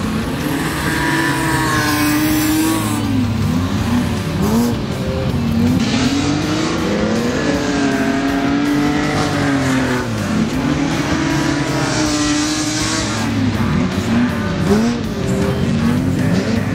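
Several stock-car engines racing together, their revs rising and falling over and over as the cars accelerate and lift off around the dirt track, the engine notes overlapping.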